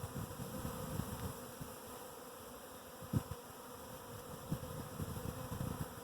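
Honeybee swarm clustered on a branch, a steady hum of many bees as the swarm settles. A few soft low thumps come through, about three seconds in and again near the end.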